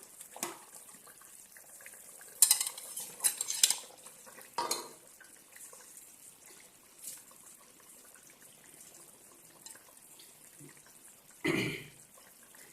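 Metal utensils and a pot clinking and scraping in short bursts as soaked maize rice is tipped into the pot, with a louder, fuller clatter near the end.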